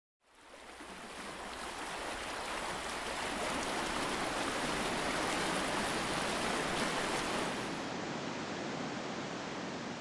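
Steady rushing water fading in over the first couple of seconds, then holding. About eight seconds in, the hiss at the top is cut away and the rush sounds duller.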